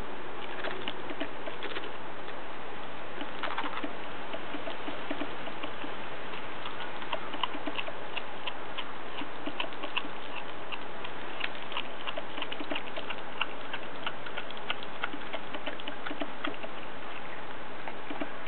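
Groenendael puppy chewing and tearing at raw green tripe: a run of wet smacking clicks and ticks from its mouth, coming thicker from about six seconds in, over a steady background hiss.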